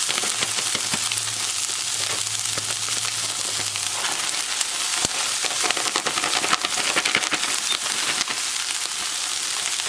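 Chopped onions and plant-based veggie crumbles frying in grapeseed oil in a pan: a steady sizzle with many scattered sharp crackles.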